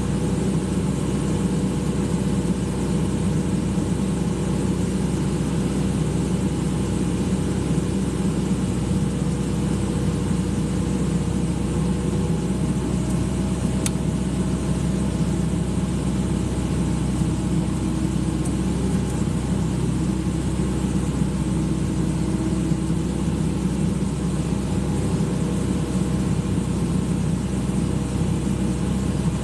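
Excavator's diesel engine running steadily at constant speed, with no change in pitch.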